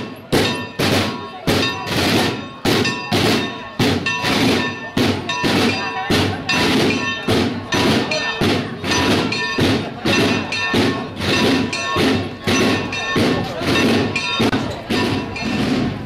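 Church bell rung rapidly in a festive peal, about two strokes a second, its ringing tones hanging on between strokes.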